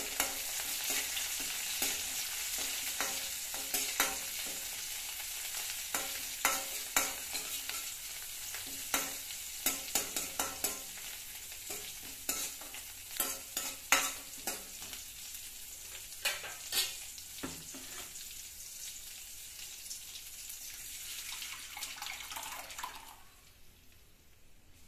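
Coriander leaves, curry leaves and dried red chillies frying and sizzling in an aluminium kadai, stirred with a steel ladle that knocks and scrapes against the pan many times. Near the end the sizzling dies away as the cooked dal is poured in over the tempering.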